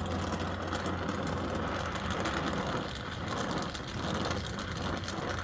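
Oxy-acetylene torch flame burning with a steady hiss as it heats a copper fitting during brazing.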